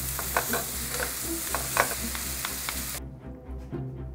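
Sliced vegetables sizzling in a hot pan while being tossed with wooden spatulas, which knock against the pan over and over. The sizzle stops abruptly about three seconds in, leaving a few quieter knocks.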